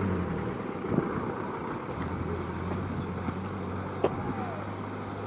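Steady low hum of a vehicle engine running, with a few faint clicks.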